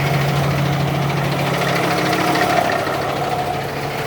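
Diesel tractor-trailer truck engine idling steadily with an even low hum.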